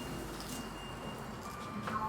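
Steady low hum inside a small passenger lift car, with a faint high whine and a click near the end.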